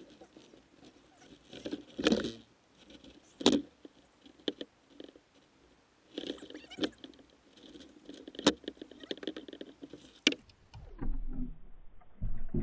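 A landing net and a caught smallmouth bass being handled in a kayak: rustling and scraping of the net and tackle, broken by a handful of sharp clicks and knocks.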